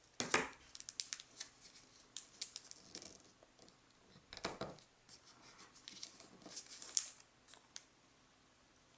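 Thin origami paper rustling and crackling in the fingers as the flaps of a paper frog are folded and creased, in scattered crisp bursts with louder rustles near the start and about halfway through.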